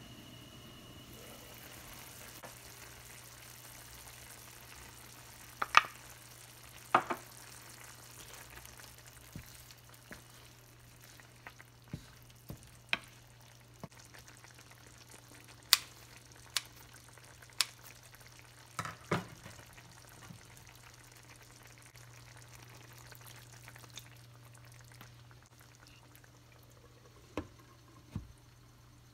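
Squid adobo simmering faintly in a stainless pan, broken by a dozen or so sharp clicks and clinks: the glass lid lifted off, kitchen scissors snipping red chilies into the pan, and the lid set back on near the end.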